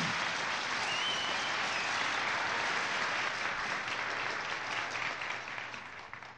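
Audience applauding, a steady wash of clapping that fades away near the end.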